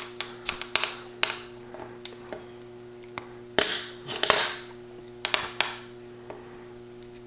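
550 nylon paracord being pulled through the woven knots of a bracelet: scattered sharp clicks and a few short rasping swishes of cord dragging, most of them around the first second and around three and a half to four and a half seconds in, over a steady low electrical hum.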